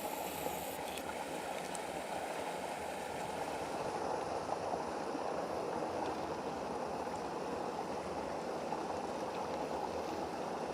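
Water rushing steadily through a break in a beaver dam.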